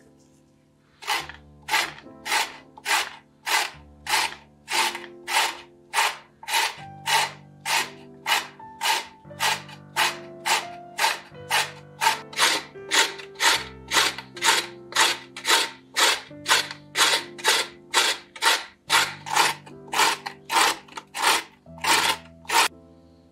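Carrot being grated on a stainless steel box grater: even scraping strokes about twice a second, starting about a second in, over soft background music.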